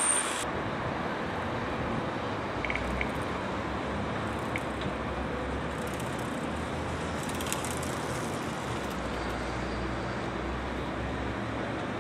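Steady city traffic noise, a low rumble under an even hiss, with a few faint clicks.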